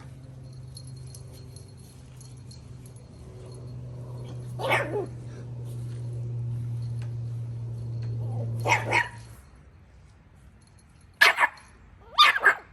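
A puppy barking in short, sharp yips: a pair about five seconds in, another pair near nine seconds, then two more near the end, over a low steady hum that stops about nine seconds in.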